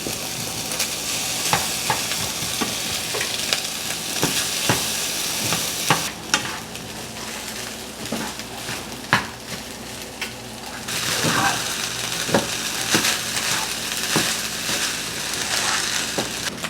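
Food sizzling in a hot pan while it is stirred, with frequent scrapes and taps of a utensil. The sizzle drops away about six seconds in and comes back around eleven seconds.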